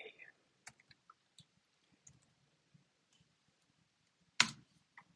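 Computer keyboard keys clicking faintly and sparsely as a path is typed, then one sharp, much louder click a little over four seconds in, with a fainter click just after.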